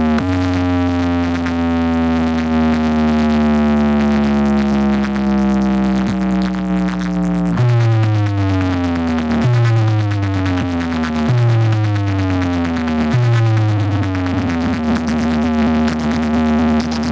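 Bass-heavy electronic sound-check track played loud through a large DJ sound system: a long synth tone slowly falling in pitch for about seven seconds, then four falling bass sweeps about two seconds apart, ending on a held tone.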